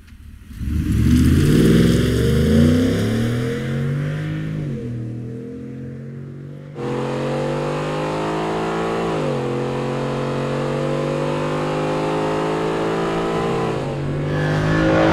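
Exhaust note of a 2021-or-later Ford F-150's 5.0L Coyote V8: the engine revs up from idle, holds, and eases off. After an abrupt change it runs at a steady higher speed, then rises again near the end.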